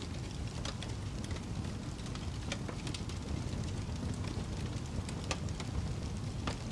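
Wood fire crackling in a fireplace: a steady low rush of burning with frequent irregular sharp pops and crackles.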